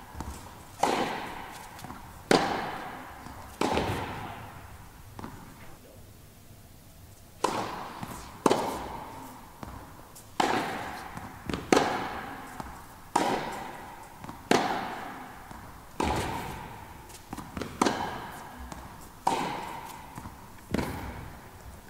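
Tennis ball struck back and forth with racquets in an indoor tennis hall: sharp pops, each with a long echo, about one every one and a half seconds. There is a pause of about three seconds a few seconds in before the hits start again.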